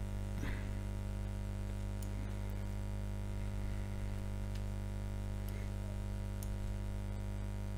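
Steady electrical mains hum with a stack of its overtones, with a few faint clicks scattered through it.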